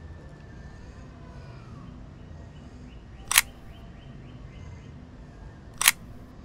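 Two sharp camera shutter clicks, about two and a half seconds apart, over a faint steady background.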